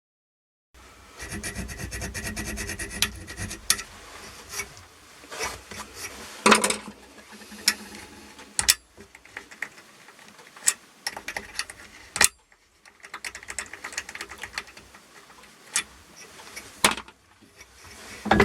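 Hand work on a small metal part: rubbing and scraping, with irregular sharp metal clicks and taps.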